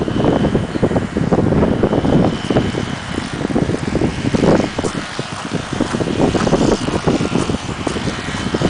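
Strong gusty wind buffeting the microphone: a loud, uneven rumble that swells and drops with the gusts.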